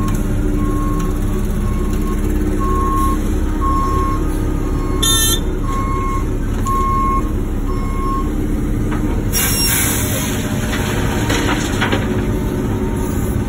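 Wacker Neuson ET145 excavator's diesel engine running steadily under a reversing alarm beeping about once a second, which stops about two-thirds of the way through. There is a short clank midway and a burst of hiss soon after the beeping ends.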